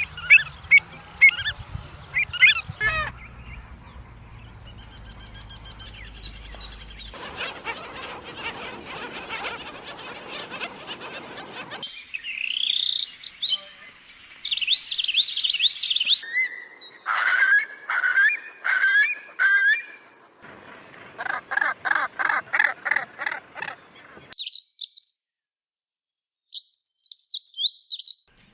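Several different birds calling and singing in short segments, one after another: chirps, rising whistled notes, fast runs of repeated notes and high twittering, each cutting off abruptly into the next.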